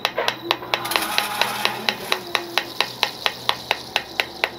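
Steady rhythmic clicking, about five even clicks a second, with a faint low tone under it.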